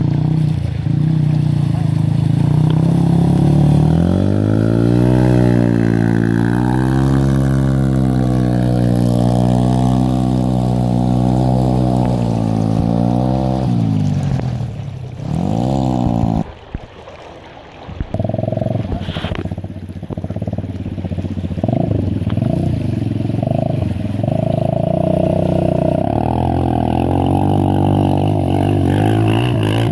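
Enduro dirt bike engine revving up and down as it rides through a shallow river, with water splashing off the wheels. Just past the middle the engine drops away briefly, then picks up again and runs on.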